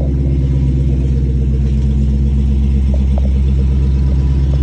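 Dodge Challenger SRT Hellcat Redeye's supercharged 6.2-litre HEMI V8 idling steadily.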